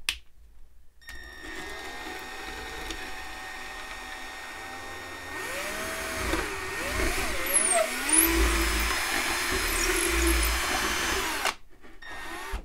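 Electric drill with a 1/8-inch bit running as it bores a hole down through the model railroad layout. The motor pitch rises and falls as the speed and load change, and it gets louder in the second half. It starts about a second in and stops shortly before the end.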